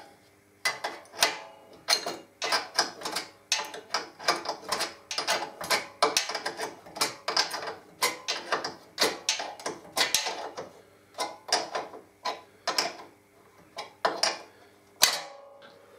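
Ratcheting spanner clicking in short, repeated strokes, about two a second, as a bolt on a Harley-Davidson Electra Glide's swingarm mount is turned to take up the slack.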